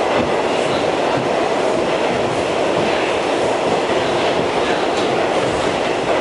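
Steady running noise of an R68 subway car heard from inside the car as it travels between stations, with a few faint clicks from the wheels on the rails.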